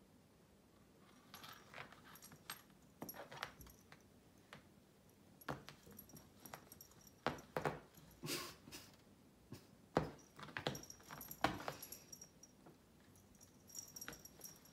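A cat batting and grabbing at a dog's feathered tail: irregular scuffs, scratches and claw clicks of its paws against upholstery and a wooden floor, with a few sharper knocks in the middle and a light metallic jingling now and then.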